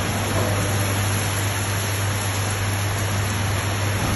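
Heavy rain and storm wind making a steady, even hiss, with a steady low hum underneath.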